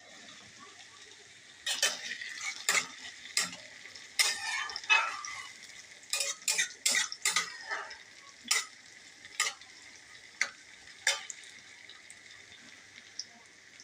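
Food sizzling in a frying pan while a metal spoon stirs and scrapes it, with clusters of sharp clinks against the pan, thinning to single knocks in the second half.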